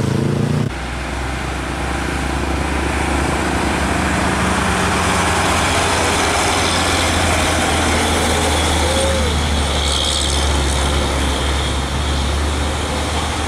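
Old Mitsubishi Fuso truck's diesel engine running steadily as it drives past, a low drone over road traffic noise.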